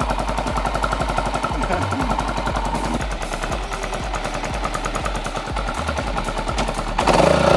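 Kawasaki KLR250 single-cylinder four-stroke enduro engine idling with a rapid, even thump, louder near the end.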